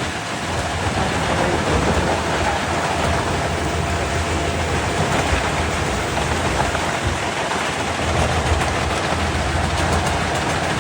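Large wood chipper of about 800 horsepower running under load as it chips wood: a loud, steady, dense mechanical noise with a crackling edge.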